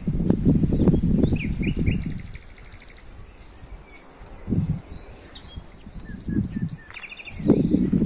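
Small birds chirping, with a quick high trill about two seconds in and a few further calls later on. Low rumbling noise comes in bursts over them, loudest in the first two seconds and again near the end.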